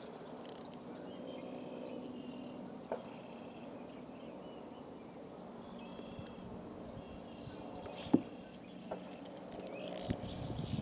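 Quiet outdoor ambience with short, high trilled chirps repeating every second or two over a steady low hum, and a single sharp knock about eight seconds in.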